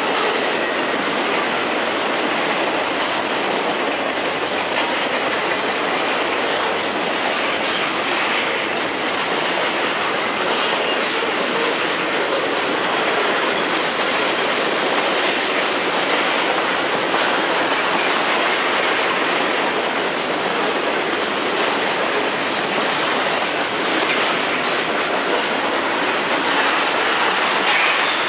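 Freight cars (boxcars, tank cars and covered hoppers) rolling past at steady speed: a continuous rumble of steel wheels on the rails with the clickety-clack of wheels over rail joints.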